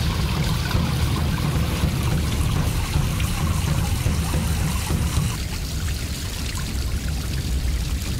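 Water splashing and trickling over rocks in a small waterfall, a steady rush that eases a little about five seconds in.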